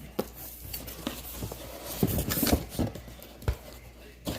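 Rustling and a few short irregular knocks of packaging being handled as parts of a cordless vacuum are taken out of their box.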